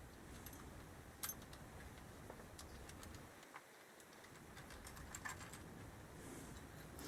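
Faint, scattered light clicks of small screws and hand tools being handled as the loosened screws of an engine-case retaining plate are taken out.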